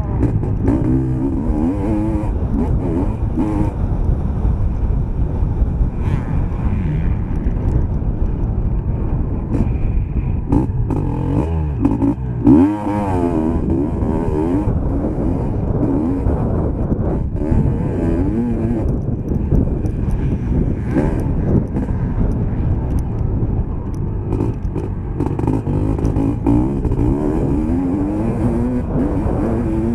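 Motocross bike engine revving hard and easing off again and again as the rider accelerates and shifts around the dirt track, heard close from an on-bike camera. The loudest rev comes about halfway through.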